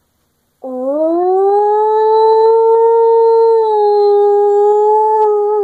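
A person howling like a wolf through cupped hands: one long howl that starts about half a second in with a quick rise in pitch, holds a steady note for about five seconds, and stops abruptly. It is a basic "I own this territory" howl.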